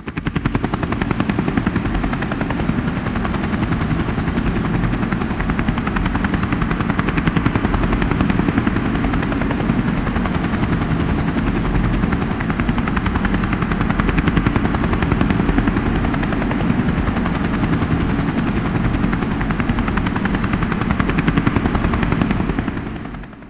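Helicopter rotor chop, a steady fast even pulsing with a faint high whine over it, fading out near the end.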